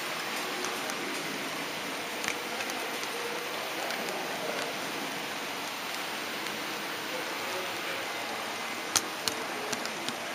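Model train rolling along its track, a steady rushing whir of wheels and motor, with a few sharp clicks near the end.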